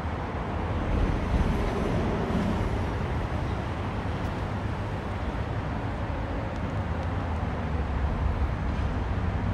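Steady rumble and hiss of road traffic, deepest in the low end, with no single vehicle or event standing out.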